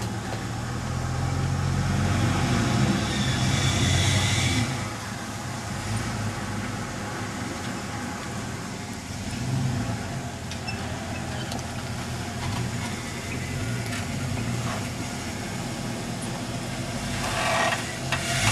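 Off-road pickup truck engine running at low revs. It grows louder for a couple of seconds about two seconds in, with a rushing hiss over it, then settles to a steady hum.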